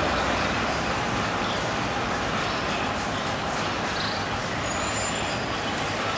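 Steady street traffic noise, an even hum of passing vehicles with no single event standing out.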